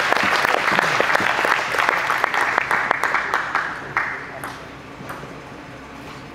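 Spectators clapping after a point in a table tennis match; the applause dies away about four seconds in, leaving a few faint taps.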